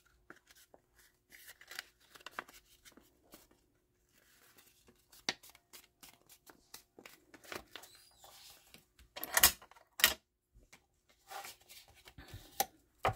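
A printed book page being handled and folded by hand: paper rustling and crinkling in small bursts, with two louder crinkles about two-thirds of the way through.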